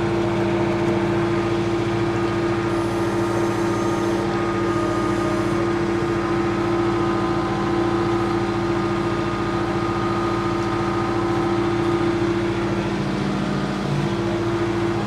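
John Deere 4066R tractor's three-cylinder diesel engine running steadily, heard from the cab as the tractor creeps forward.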